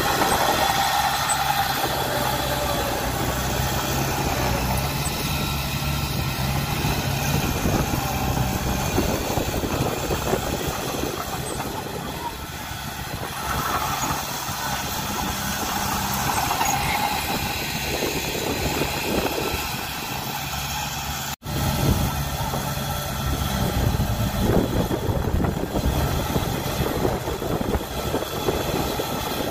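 Komatsu D20P crawler dozer's diesel engine working under load as the dozer pushes a dump truck stuck in deep soil. The sound cuts out for an instant about two-thirds of the way through.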